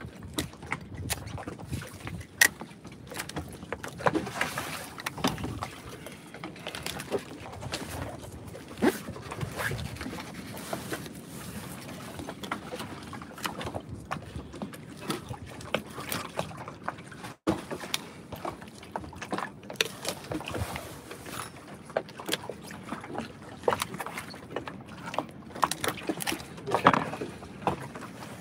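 Knife slicing and scraping through a fish's tough skin and flesh on a wooden deck, with irregular clicks, knocks and wet handling sounds over a steady background hiss of wind and water.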